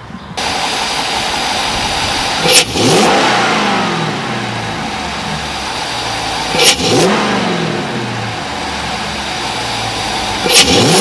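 Dodge Charger R/T's 5.7 L Hemi V8, fitted with a 90 mm BBK throttle body and K&N cold air intake, running and revved three times in quick blips about four seconds apart, each rev rising sharply and falling back.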